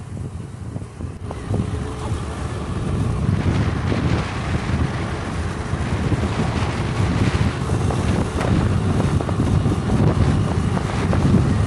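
Wind buffeting the microphone of a moving vehicle, over a low rumble of engine and road noise; it gets louder about three seconds in.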